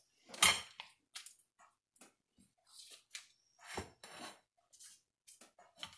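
Butter in its paper wrapper rubbed around a glass pie plate to grease it: scattered rustles and scrapes, with a sharper knock against the glass about half a second in and another near four seconds.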